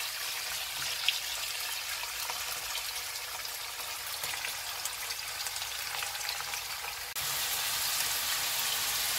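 Peeled prawns and chopped garlic sizzling in olive oil in a frying pan, with scattered crackles and a spatula stirring at first. The sizzle gets louder about seven seconds in.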